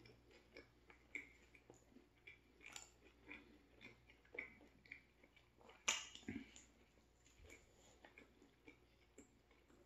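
Close-miked chewing of a mouthful of turkey sandwich with the mouth closed: soft, wet, irregular chewing about twice a second, with one sharper click about six seconds in.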